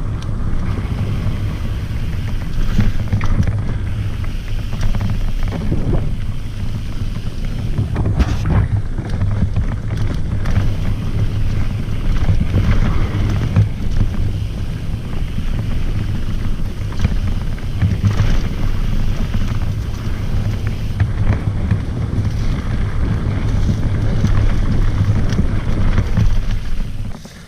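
Wind rumbling on an action camera's microphone and mountain bike tyres running over a dirt trail at speed, with a few short knocks from bumps in the trail.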